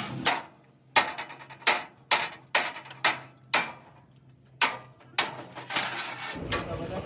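Hammer blows on steel, about ten sharp ringing strikes at an uneven pace.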